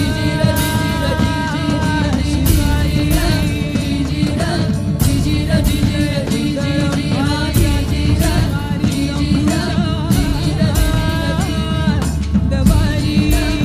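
Music: a singing voice with wavering, ornamented notes over a steady low drone and percussion strokes.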